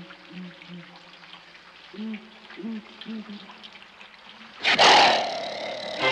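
An owl hooting in low, repeated two-note hoots over steady rain. About three-quarters of the way through comes a sudden, loud lion's roar.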